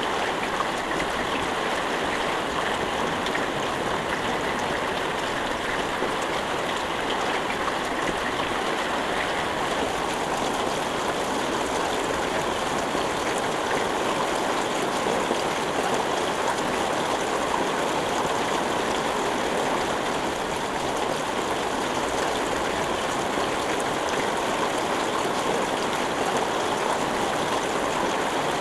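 Steady rain falling in a dense, even patter with no thunder.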